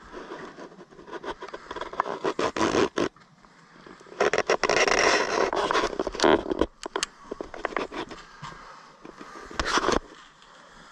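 Footsteps crunching over fallen plaster and lath debris on old wooden floorboards, with sharp knocks and cracks, and a dense scraping rustle about four to six and a half seconds in as the camera brushes past a door frame.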